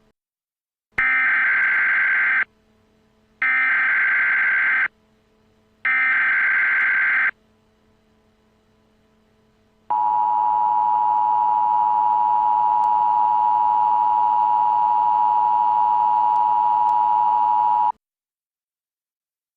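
Emergency Alert System SAME header: three identical bursts of buzzing digital data tones, each about a second and a half long. About two and a half seconds later comes the EAS two-tone attention signal, a steady dual tone held for about eight seconds and then cut off.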